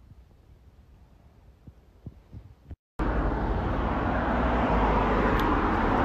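Faint soft handling sounds, then, after an abrupt cut about three seconds in, a loud, steady rush of outdoor street noise.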